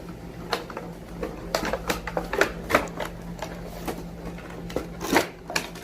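Irregular clicks and crackles of a toy box and its plastic parts being opened and handled. They come thicker from about a second and a half in.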